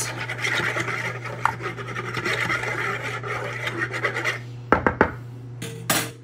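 A fork scraping round a mixing bowl, stirring active dry yeast and sugar into warm water to dissolve the lumps, continuous for about four seconds, then a few sharp knocks near the end.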